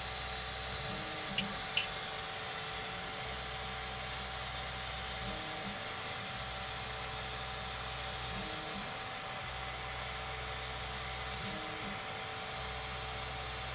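Formbot Troodon CoreXY 3D printer running its gantry and bed levelling routine: stepper motors hum as the toolhead moves between probe points. The low hum stops and restarts about every three seconds over a steady fan whir, with two sharp clicks about a second and a half in.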